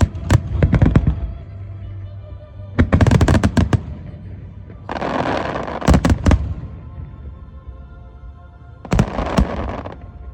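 Fireworks bursting in quick volleys of sharp bangs, with a dense crackling hiss around the middle, over background music.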